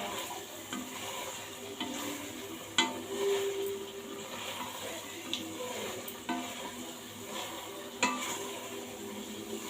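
A metal spoon stirring food frying in a cooking pot, with a light sizzle and sharp clinks against the pot, the loudest about 3 seconds and 8 seconds in.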